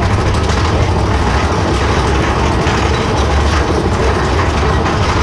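Mine-train roller coaster heard from aboard a moving train: steady wind buffeting the camera microphone over the rumble of the train running along its track.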